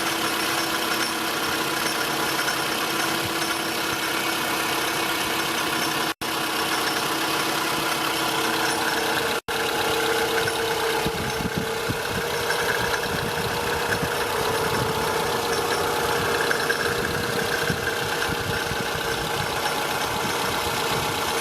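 Toyota Estima ACR30's 2.4-litre four-cylinder engine running at idle, heard in several short takes joined by cuts. From about eleven seconds in, the running sounds coarser, with a rougher low rattle under it.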